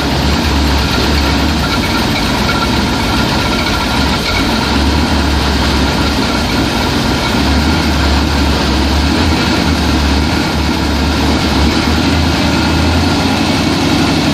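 Oldsmobile 455 big-block V8 in a jet boat idling steadily with a deep, slightly pulsing rumble, just after its first start.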